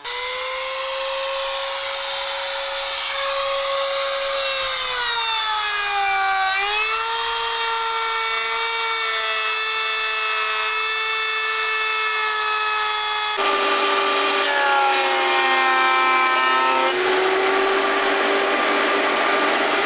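Small Vevor trim router running at a steady high whine while cutting into an oak board; its pitch sags about five to six seconds in and then recovers. About 13 seconds in it gives way to an electric thickness planer running as an oak strip feeds through and throws out shavings.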